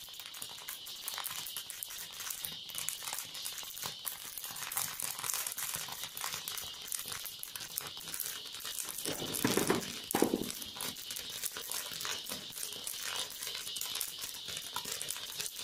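Sorghum grains popping in a hot iron pan under a cloth: a dense, fast crackle of tiny pops, mixed with the rustle of the cloth as a cloth-wrapped stick keeps stirring. Two louder scuffs come about nine and ten seconds in.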